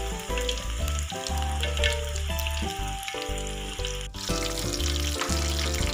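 Wonton-wrapped tofu deep-frying in hot oil in a wok, a steady crackling sizzle, over background music with a steady bass line.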